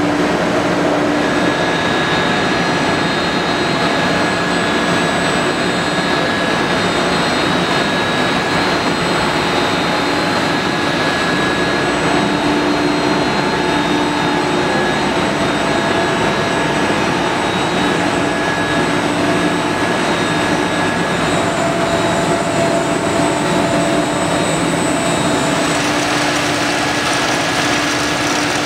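UNISIG B700 BTA deep hole drilling machine running under cut: a steady, dense machining noise with faint steady whine tones. Near the end it turns brighter and hissier.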